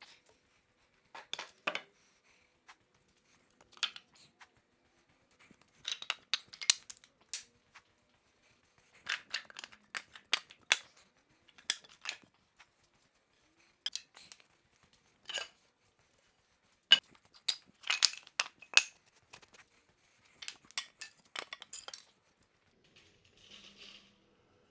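Irregular clusters of sharp clicks and light clatters from small tools and objects being handled, separated by quiet gaps.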